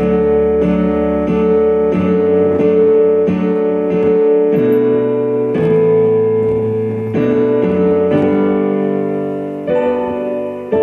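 Piano playing sustained chords, struck again about three times every two seconds, with the bass note shifting to a new chord about halfway through.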